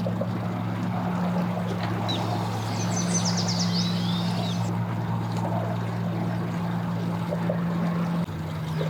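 Boat engine idling steadily, its pitch stepping slightly lower near the end. A quick run of high chirps is heard a few seconds in.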